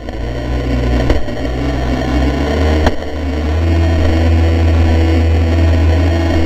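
Traxxas Spartan electric RC boat running on the water, heard through its onboard GoPro: a steady low rumble of water and wind with a couple of sharp knocks, growing louder and steadier about halfway through.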